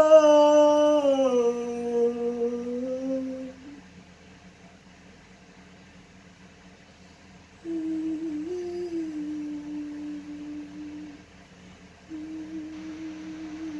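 A person's voice singing unaccompanied, holding the word "control" on a note that sinks and fades over the first few seconds. After a pause they hum a steady low tune, in two stretches with a short break between.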